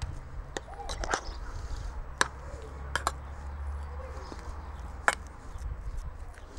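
Potatoes being worked into a purée with a metal utensil in a stainless steel bowl: a soft mashing sound with a few sharp clicks where the metal knocks the bowl, over a steady low rumble.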